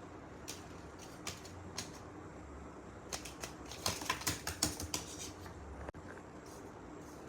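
Blind bag packaging being handled and crinkled: a few separate crackles, then a dense run of crackles between about three and five seconds in.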